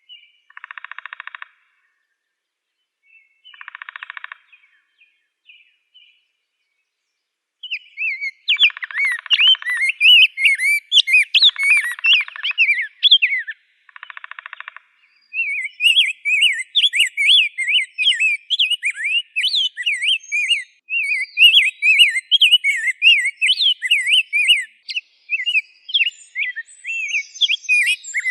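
Rose-breasted grosbeak singing: a fast, continuous warble of quick rising and falling whistled notes that starts about a quarter of the way in and runs on, with fainter high-pitched notes above it. Before the song come a few short, buzzy pulsed notes with pauses between them.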